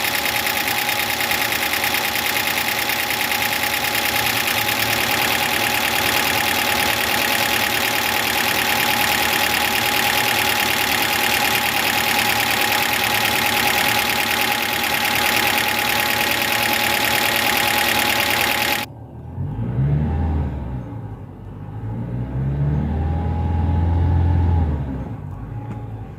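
Toyota Camry engine idling freshly rebuilt after a head gasket and timing chain job, with a loud, dense tappet clatter from the valvetrain. The noise is there because the oil was drained out of the cams and the VVT has not yet filled with oil. About two-thirds of the way in the clatter cuts off suddenly, giving way to a quieter, lower engine sound that rises and falls.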